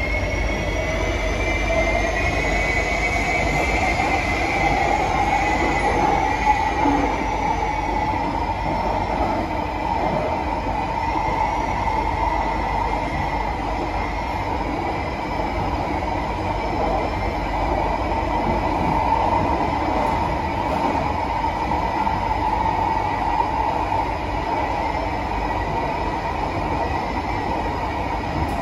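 SMRT C151B metro train running between stations, heard from inside the car: a steady rumble of wheels on rail with the electric traction motors' whine. The whine rises in pitch over the first few seconds as the train picks up speed, then holds about steady.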